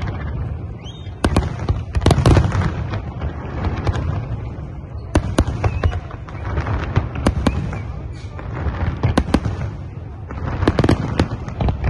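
Fireworks display: shells bursting in a run of sharp bangs, sometimes several close together, over a steady low rumble.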